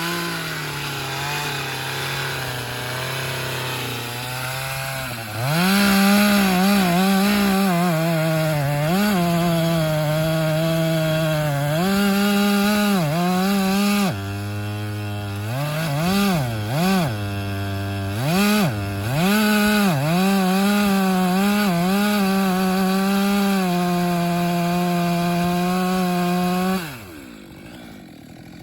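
Two-stroke chainsaw running at high revs, cutting wood. Midway it drops to idle and is blipped up several times, then it runs steady and high again until the engine drops away with a falling pitch near the end.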